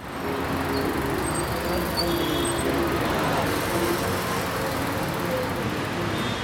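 Steady road traffic noise, with faint voices in it.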